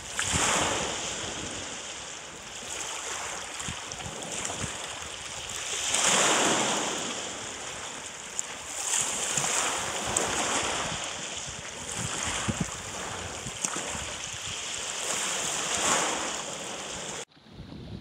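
Small lake waves washing in over a pebble beach, each wave swelling up every few seconds and draining back through the stones. Near the end the sound drops suddenly to a quieter, steadier wash.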